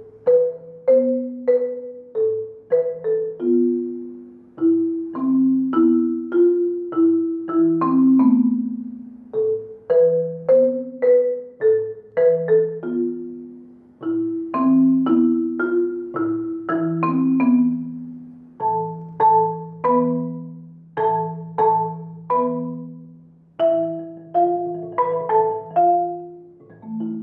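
Vancore CCM4001 4.3-octave concert marimba with African padauk bars, played with four soft mallets: a slow, unaccompanied piece of struck chords and melody notes, mostly in the low and middle range, each note ringing and then fading.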